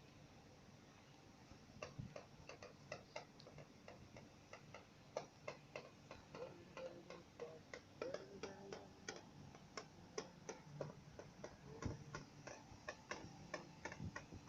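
A run of light, irregular clicks and ticks, a few each second, starting about two seconds in.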